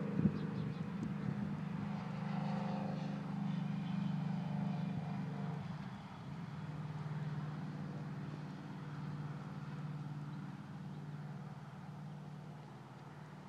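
A motor engine droning steadily. It drops slightly in pitch about six seconds in and fades toward the end.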